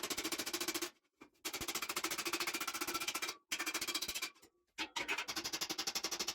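Hammer striking the steel neck of a great bascinet helmet in a fast, even run of ringing metal blows, as the neck is shaped in. The run stops briefly three times, about one, three and a half, and four and a half seconds in.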